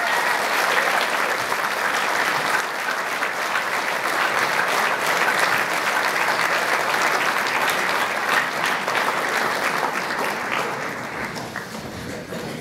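Audience applauding, a dense clapping that thins out and fades over the last couple of seconds.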